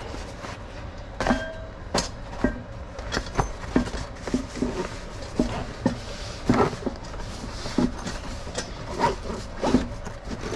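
Snow Peak canvas Dutch oven storage case being handled and packed: cloth rustling with a string of irregular light knocks and clicks.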